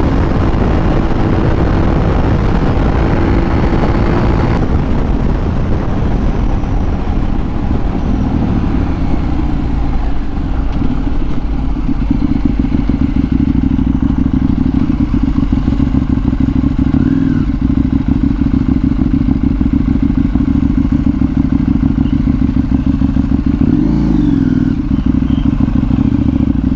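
Motorcycle engine running at road speed with wind rush, then easing off and slowing through falling engine pitches. It ends ticking over at low revs with a steady, rapid pulse as the bike rolls slowly, with a brief rev and fall near the end.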